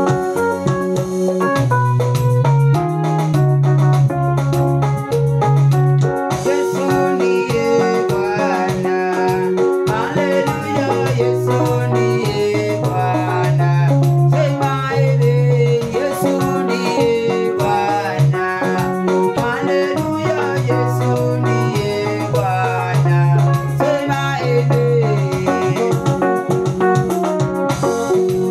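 Electronic keyboard music: chords over held bass notes that change every couple of seconds, with quick runs of short notes above.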